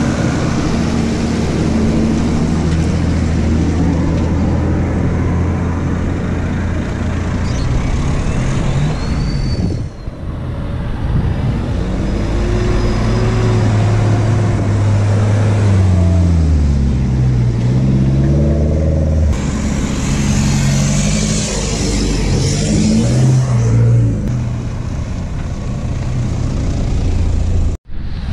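A four-wheel-drive's engine working over a rough off-road track. It runs at a steady note at first, then its revs rise and fall again and again under load, and it cuts off suddenly near the end.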